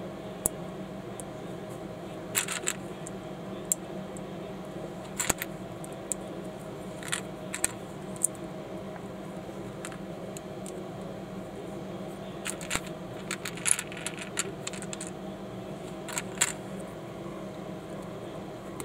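Small plastic Lego-compatible bricks clicking and snapping together as plates are pressed on by hand. The clicks come one at a time or in quick clusters, over a steady low hum.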